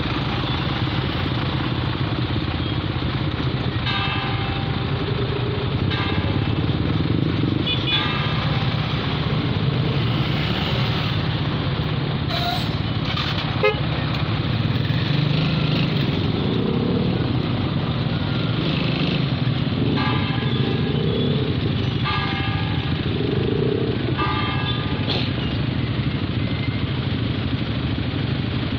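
Motorcycle engines running in slow, congested traffic, a steady low engine hum. Short vehicle-horn beeps come in two groups of three, about two seconds apart, early and again later.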